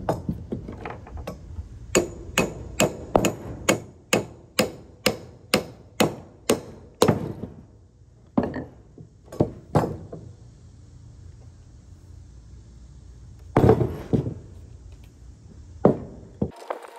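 Hand hammering: a run of sharp, evenly spaced knocks, about two and a half a second for around five seconds, then a few scattered single knocks.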